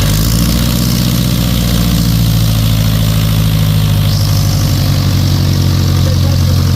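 Light aircraft's piston engine idling steadily, close and loud, with a rise in hiss about four seconds in.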